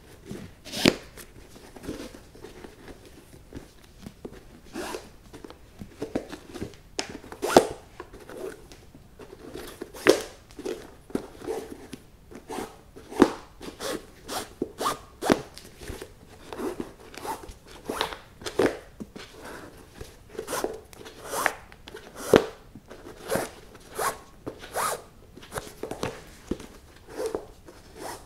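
A flat shoelace being threaded and pulled through the eyelets of a Nike Dunk High sneaker, heard close up. It makes short, sharp zipping rasps that come irregularly, about one or two a second.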